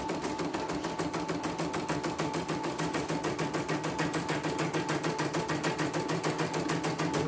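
CNY portable computerised embroidery machine stitching a design, its needle going in a fast, even rhythm. The motor runs freely and is not stiff after the power supply was replaced.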